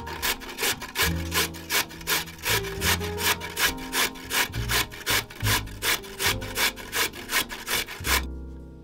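Vegetables being worked by hand on a kitchen board: rhythmic rasping strokes, about three a second, that stop suddenly near the end. Soft background music runs underneath.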